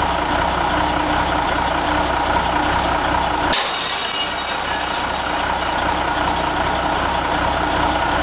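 A heavy vehicle's engine running steadily with a low hum. About three and a half seconds in, the sound changes abruptly: the low hum drops away and a lighter engine sound with faint high whines goes on.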